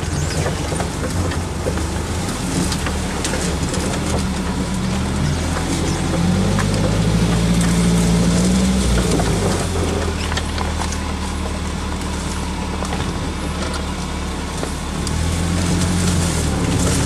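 Off-road 4x4's engine pulling slowly through a rough track, revving up about six seconds in, easing off near ten seconds, then rising again near the end.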